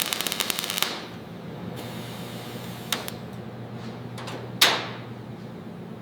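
Tack welding a metal patch panel into a car body shell: a fast, even crackle of the weld arc for about a second, then a low steady hum, with a single sharp hit about three-quarters of the way through.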